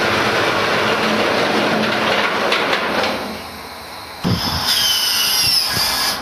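Rolls-Royce Merlin V12 engine running through a Beaufighter IIF-style exhaust manifold, a steady note without speech. About three seconds in the sound dies away; a second later there is a sudden thump, followed by a high whine falling in pitch.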